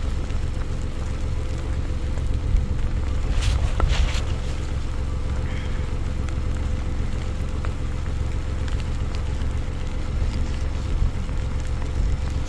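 Wind buffeting the microphone: a steady low rumble, with a faint steady hum and a few brief clicks about three to four seconds in.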